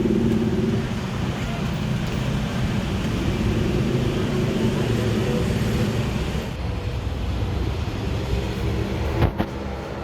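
Steady outdoor background noise, then a Daikin Flash Inverter RKQ35SVM4 air conditioner outdoor unit running with a steady hum and a few steady tones, starting a little over halfway in. A short knock comes near the end.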